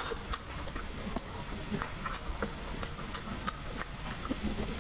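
Close-up mouth sounds of a person chewing braised pork rib meat: irregular short, wet clicks and lip smacks.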